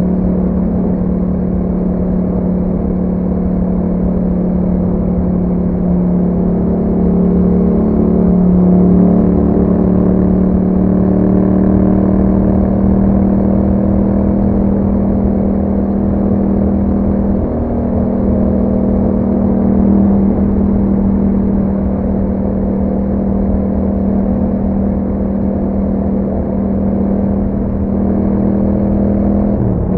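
2021 Yamaha MT-07's parallel-twin engine running through an Akrapovic exhaust while riding at a fairly steady pace. The pitch holds mostly even, rising slightly early on and dipping briefly about two-thirds of the way through and again near the end.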